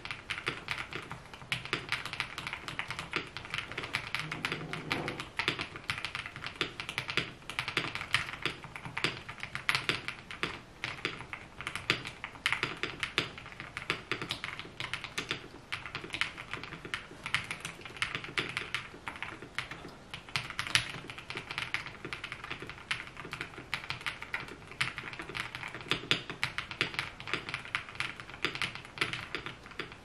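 Continuous fast typing on a compact mechanical keyboard: a steady stream of key clicks.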